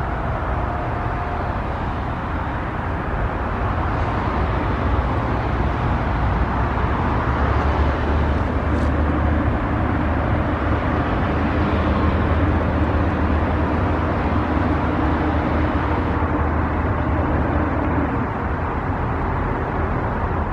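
Road traffic running past, a steady engine-and-tyre rumble with a low hum that builds over the first several seconds and then holds. A faint steady tone fades out about a second and a half in.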